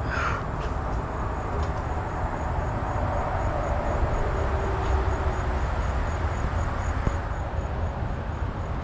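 Outdoor ambience: insects chirping steadily at about three pulses a second over a constant low rumble.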